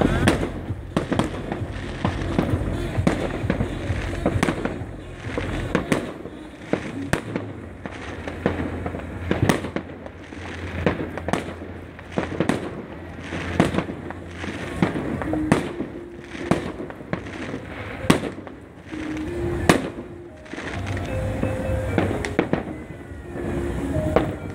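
Aerial fireworks display: shells bursting one after another at irregular intervals, each a sharp bang over a continuous low rumble, with music playing in the background.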